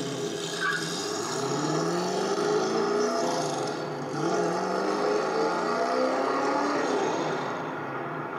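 Classic Ford Mustang fastback's engine accelerating hard: the pitch climbs, drops at a gear change about four seconds in, and climbs again, then eases off near the end.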